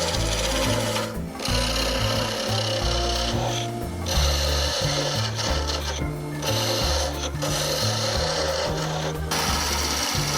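Carbide turning tool cutting a spinning oak blank on a wood lathe: a steady scraping hiss that breaks off briefly four times, over background jazz music with a walking bass.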